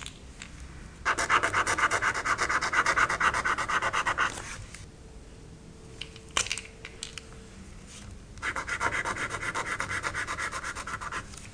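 Chisel-tip metallic highlighter scribbling on paper in rapid back-and-forth strokes, in two bursts of about three seconds each. A few sharp clicks come between the bursts.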